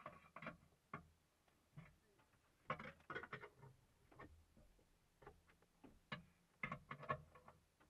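Faint, irregular clanks and knocks, bunched in a few quick runs, from the crew working on a punctured wheel with a wheel brace and socket.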